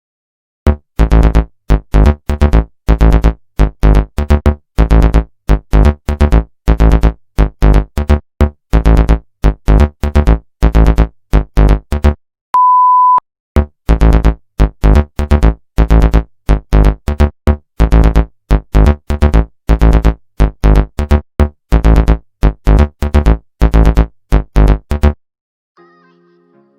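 Loud synthesizer music in rapid, choppy bass-heavy stabs, interrupted once about halfway by a short, steady, pure beep tone.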